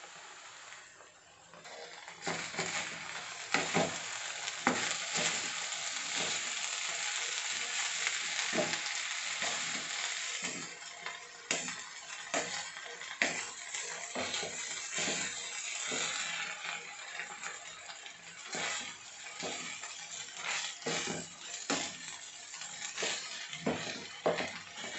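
A spatula stirs and scrapes a raw banana and cowpea thoran around a hot nonstick wok, with repeated short scrapes and knocks against the pan. The food sizzles from about two seconds in; the sizzle is loudest in the first half and fades after that.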